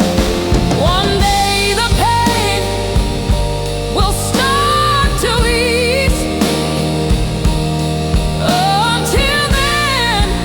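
Slow blues ballad playing: a band with a steady drum beat and bass under a lead melody line that bends and wavers in pitch, with no sung words.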